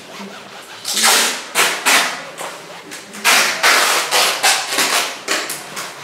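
A cloth rag rubbed back and forth across a painted canvas in quick, irregular scratchy swishes, blending and softening the wet oil paint of the sky.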